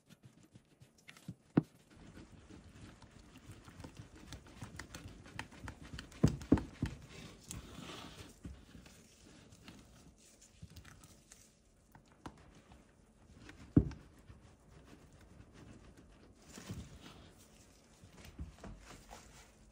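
Spatula stirring and folding a thick sour cream and starch batter in a bowl: soft wet scraping and squelching, with a few sharp knocks of the spatula against the bowl's side.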